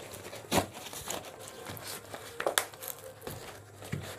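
Paper courier bag being torn open and crinkled by hand, with a few sharp rips, the loudest about half a second in and about two and a half seconds in.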